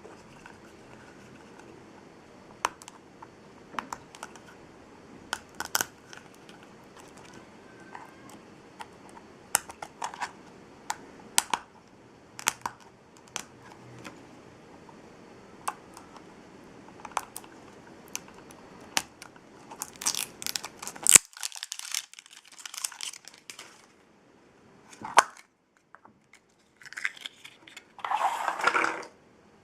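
Blind-bag toy packaging being handled: scattered sharp plastic clicks and taps, then a few seconds of crinkling and tearing of a wrapper about two-thirds of the way through, a single click, and more crinkling near the end.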